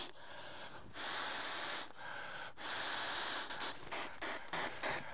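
A man blowing up an inflatable sleeping pad by mouth: two long, hard blows into the valve with a breath between, then a run of shorter quick puffs near the end.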